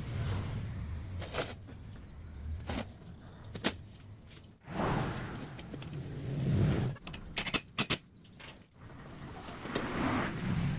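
Homemade remote-control bulldozer's hydraulic system running, its low hum swelling and easing several times as the cylinders work, with a few sharp metallic clicks and a quick cluster of them past the middle.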